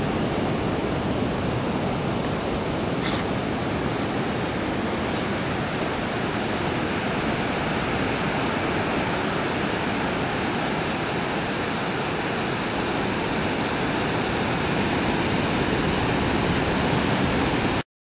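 Ocean surf breaking on a sandy beach: a steady rushing noise that cuts off suddenly near the end.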